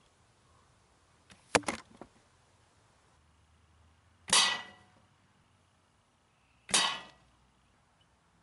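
A wooden bow being shot, heard as a quick double snap about one and a half seconds in, then two arrows with hand-forged steel points striking the target: each hit a sharp smack with a short ringing tail, about four and seven seconds in.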